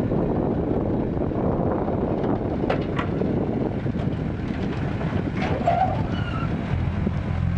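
Old six-wheel dump truck's engine running steadily as the tipper bed comes down and the truck pulls away over loose dirt, with wind on the microphone.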